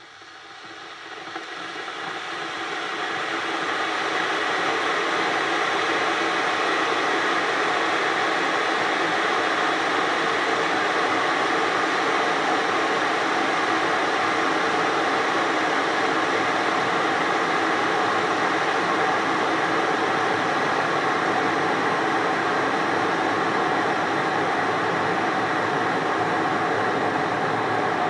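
Breville VKJ367 Brita Hot Cup hot water dispenser heating water towards the boil: a rushing hiss that builds over the first few seconds and then holds steady.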